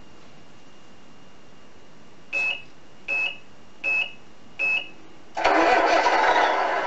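Tamiya MFC-01 sound unit in a model Scania truck: four short beeps about three-quarters of a second apart, then its simulated truck engine starting up and running through the unit's speaker, much louder than the beeps. A faint high electronic whine sits underneath.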